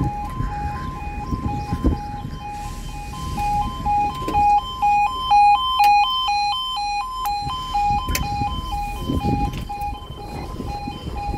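Level crossing alarm sounding its warning, a two-tone alarm rapidly switching back and forth between two pitches. It grows louder and faster-alternating for a few seconds in the middle, over a low rumble.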